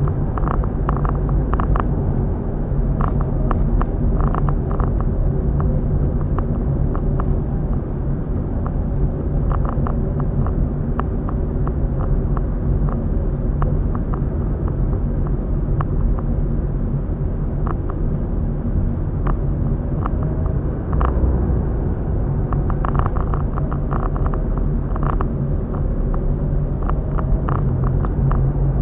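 Steady road and engine rumble heard from inside a moving car, with light rattles and clicks scattered throughout.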